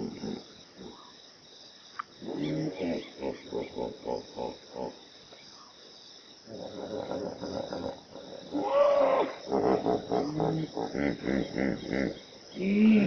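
Hippopotamus grunting: two long series of rapid, pulsing grunts with a short pause between them, and another grunt near the end.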